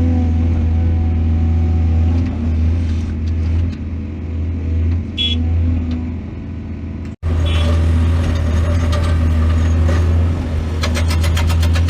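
Excavator's diesel engine running steadily with a deep hum, easing off somewhat for a few seconds and then cut off abruptly for an instant about seven seconds in before it resumes. Near the end a fast, even rattle joins it.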